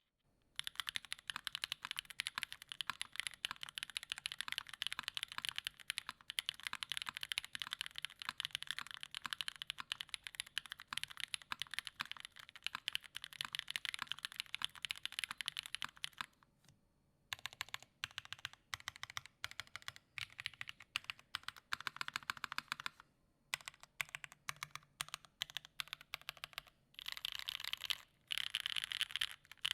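Typing on a Keycult No.2 Rev.2 gasket-mount custom mechanical keyboard with an aluminium plate, stock unlubed Gateron Raw switches and GMK ABS keycaps: rapid, continuous keystroke clacks for about the first half. The typing then comes in bursts with brief pauses, and runs fast again near the end.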